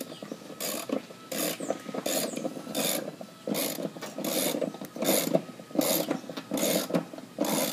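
Socket ratchet on an extension clicking in repeated short strokes, about two a second, as it runs a self-threading mounting bolt into the base of a heat pump compressor.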